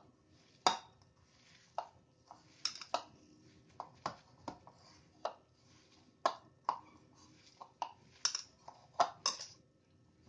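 Hand mixing a chicken paste in a bowl: irregular sharp clicks and taps, roughly two a second, as the hand works the paste against the bowl, with faint soft rustling between them.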